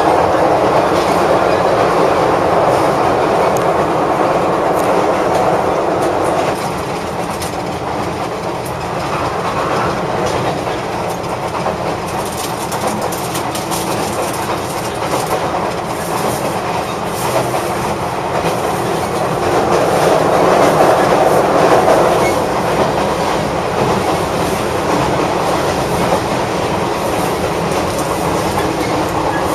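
Running noise inside the passenger car of the former Seibu Red Arrow limited express, heard as a steady rumble of wheels on rail with light clickety-clack. It drops a little about six seconds in and swells again about twenty seconds in.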